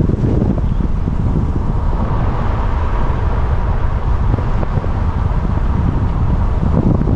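Loud, steady rumble of wind buffeting the microphone of a moving car, with road noise underneath.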